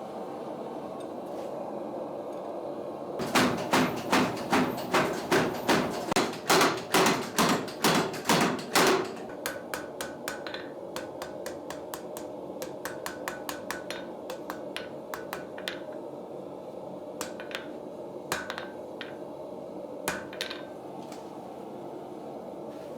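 A blacksmith's hammer striking iron on an anvil while forging log dogs. About fifteen heavy blows come in quick succession, then lighter, faster taps, then a few scattered taps, all over a steady hum.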